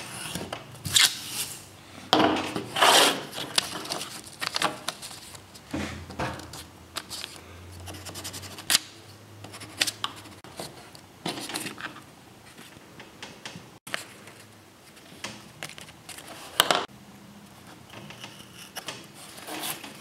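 Pencil scratching on paper and paper sheets being handled and rubbed on a workbench, in short irregular rustling strokes that are busiest in the first few seconds.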